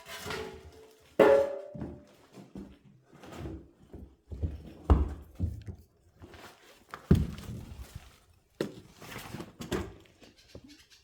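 A series of irregular knocks and thuds, several loud ones a couple of seconds apart, the loudest about a second in with a brief ring, between softer scraping and rustling.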